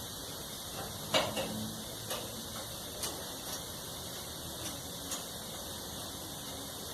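A flat-head screwdriver and metal parts being worked on a tumble dryer's panel: a handful of light clicks and taps, the loudest about a second in, over a steady background hiss.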